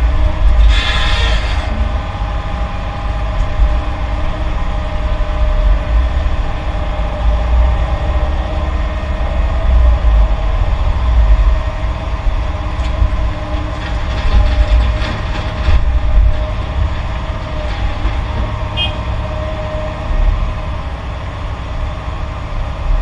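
Heavy diesel construction machinery running: a loud, continuous low engine rumble, with a short hiss about a second in.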